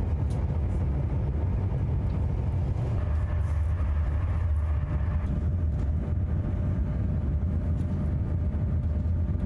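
Steady low rumble of a moving vehicle, with a faint steady hum higher up.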